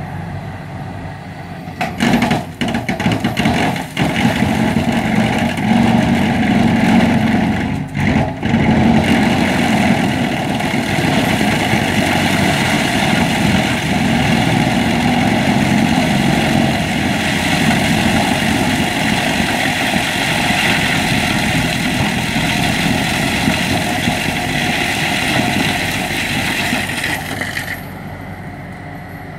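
Tractor-driven PTH Crusher 2500HD stone crusher breaking large dolerite stones. For the first several seconds there are irregular sharp cracks and bangs of rock being smashed, then a steady loud grinding noise over the tractor's running engine. The grinding cuts off suddenly near the end, leaving the engine running.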